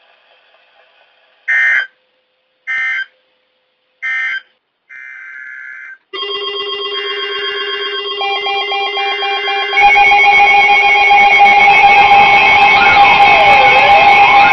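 NOAA Weather Radio sending three short bursts of screeching SAME digital data, the end-of-message code after a warning. Weather alert radios then start sounding their alarms: several steady beeping tones layered together that jump louder about two-thirds of the way through, with a wailing siren-like tone sweeping down and up near the end.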